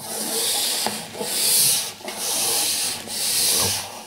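Four rubbing strokes, about one a second, each lasting most of a second, as hands work a blanking plate into a server rack's mounting rails.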